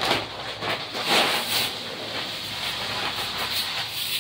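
Granulated sugar poured from a plastic bag into a pot of water, a steady hiss with the bag rustling in bursts.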